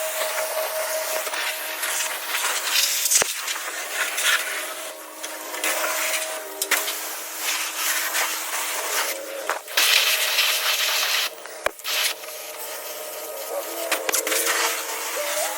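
Car-wash pressure washer wand spraying a Jeep: a loud, steady hiss of water jetting onto the body with a low pump hum under it. The spray wavers as the wand moves and briefly dips a few times.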